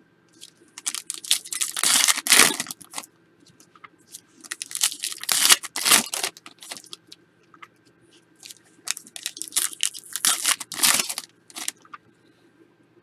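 Wrappers of Panini Prizm football card packs being torn open and crinkled by hand, in three bursts a few seconds apart.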